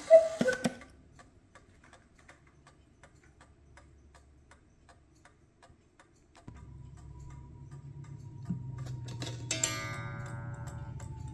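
The movement of an 8-day cuckoo mantel clock, which combines a mainspring and a fusee, ticking steadily as its pendulum swings. A few knocks come in the first second, and near the end there is a short metallic ring that dies away.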